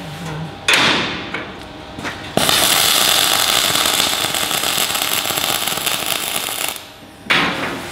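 Welding arc crackling and hissing steadily for about four seconds as a butt seam is welded between two 5 mm steel bulkhead plates. A sharp knock with a short ring comes before it, about a second in, and another near the end.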